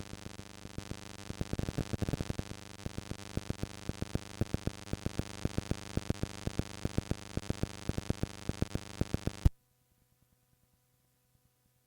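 Sony HF Type I cassette tape playback with no programme: steady tape hiss and hum, peppered with frequent sharp clicks and crackles. It cuts off abruptly about nine and a half seconds in, leaving near silence.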